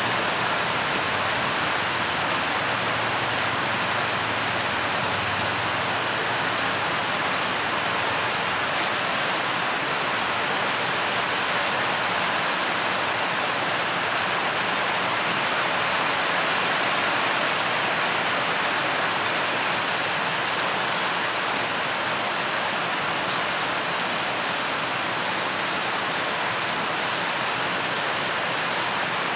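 Heavy rain falling steadily onto a road covered in standing floodwater, the drops splashing into the water in an even, unbroken hiss.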